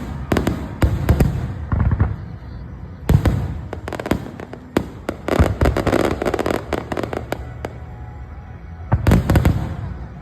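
Aerial fireworks bursting in volleys of sharp cracks and booms. A short cluster opens the stretch, a long, dense barrage follows from about three seconds in, and one last volley comes near the end.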